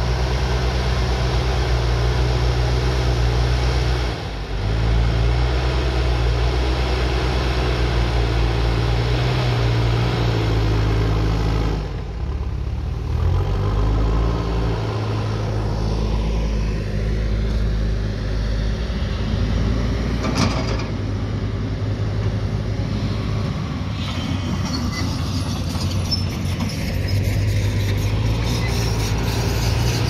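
The diesel engine of a JCB 3DX backhoe loader works under load as the front bucket pushes soil. Its steady note dips twice and picks up again, and there is a single short knock about two-thirds of the way through.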